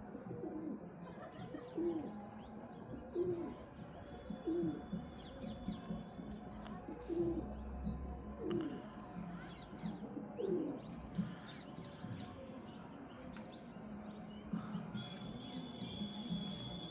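Pigeon cooing: a low call repeated about every second and a half, some eight times, stopping about two-thirds of the way through.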